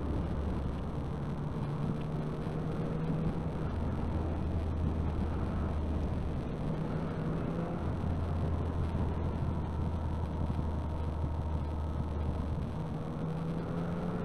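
Motorcycle engine running on the move, its note changing pitch a few times with the throttle, over steady wind and road noise.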